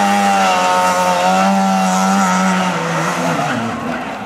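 Trabant 601 rally car's two-stroke twin-cylinder engine running as the car passes close by, a steady note that wavers slightly, then fades away about three seconds in as the car moves off.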